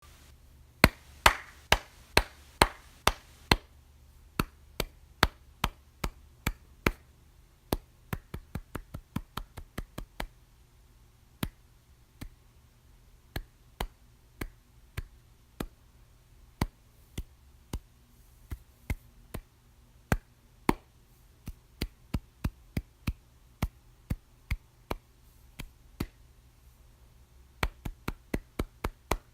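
A person clapping their hands softly, one clap at a time, at irregular spacing: mostly a second or so apart, with a quick run of about a dozen about a third of the way in and another quick cluster near the end. A faint low hum runs underneath.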